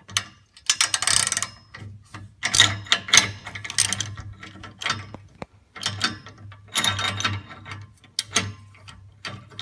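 Ratchet wrench clicking in repeated bursts, swung back and forth on a 22 mm O2 sensor socket to unscrew an oxygen sensor from the exhaust downpipe.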